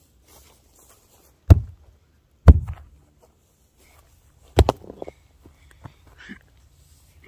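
Three heavy, close thuds on the ground, the second a second after the first and the third about two seconds later, followed by a few lighter knocks and scrapes.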